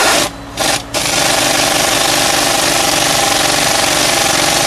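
Air-powered pneumatic hammer, fed by an air hose, hammering rapidly into the ground: two short bursts in the first second, then running steadily.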